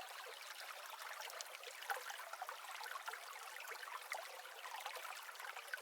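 Faint, steady trickle of running water, a stream-like hiss with small scattered drips and splashes.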